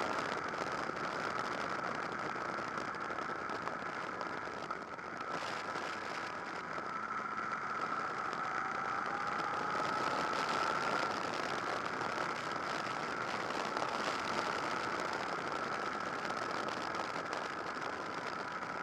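Honda VFR800 VTEC's V4 engine running steadily under way on the open road, mixed with continuous wind and road rush. Its tone climbs a little about halfway through.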